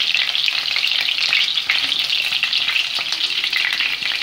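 Cornflour-coated chicken pieces shallow-frying in hot oil in a pan: a steady, loud sizzle with many small pops and crackles as the pieces are turned and lifted out with metal tongs.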